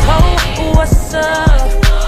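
Music: a hip hop / R&B track with heavy bass, sliding synth melody lines and a regular drum beat.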